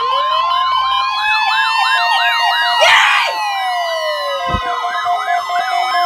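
Several NOAA weather radios sounding their warning alarms together for a weekly test: a steady high tone near 1 kHz, a fast warbling siren about two to three cycles a second, and slow gliding tones. A pulsing lower beep joins about five seconds in, with a short burst of noise about three seconds in.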